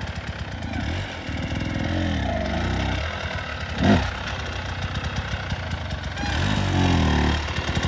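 Enduro dirt bike engine revving up and down in repeated surges as the rider works the throttle, with a brief sharp burst of noise about four seconds in.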